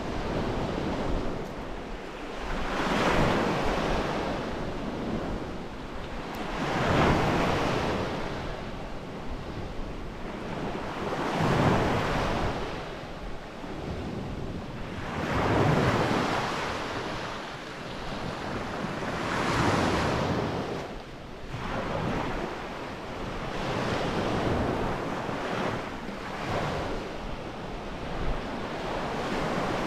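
Ocean surf breaking on a beach: a wave swells up and washes back about every four seconds.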